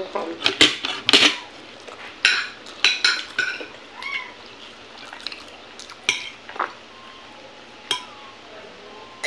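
Close-up eating by hand: irregular short smacks and clicks of chewing, fingers working food on a plate, and dish clinks. They come thickly for the first few seconds, then more sparsely.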